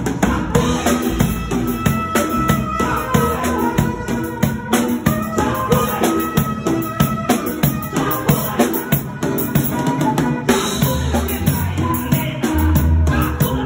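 Live band music: a drum kit played with cymbals under a saxophone line, in a steady dance beat.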